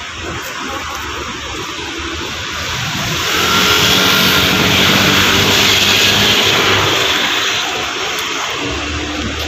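A motor vehicle passing by: its engine grows louder about three seconds in and fades again after about seven seconds, over a steady background hiss.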